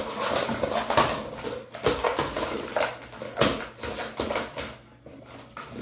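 A puppy paws at a hard plastic ball-in-track puzzle toy, and the plastic knocks and rattles against a laminate floor in a run of irregular clicks and knocks. There are a few louder knocks about two and three and a half seconds in.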